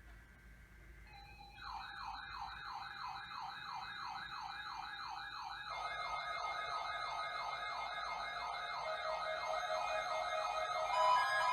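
Electronic siren sweeping rapidly up and down about three times a second, growing louder. A second siren tone joins about halfway through, and steady beeping tones come in near the end.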